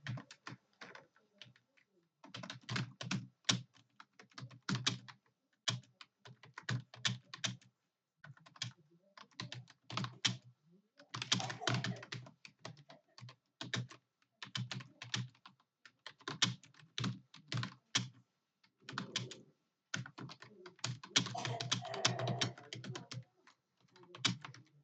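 Fast typing on a computer keyboard: quick runs of keystrokes broken by brief pauses.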